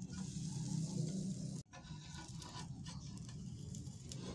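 Pancake batter sizzling faintly in a non-stick frying pan, with a metal spatula scraping against the pan. The sound cuts out abruptly about one and a half seconds in, then carries on.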